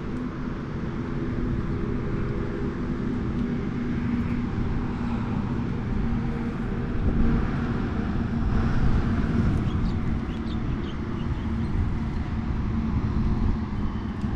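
A steady low engine hum, several even tones held throughout, over a rumbling low noise.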